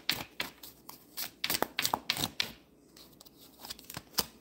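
A tarot deck being shuffled by hand: a quick, irregular run of card snaps and flicks that thins out about halfway through, with a few more flicks near the end.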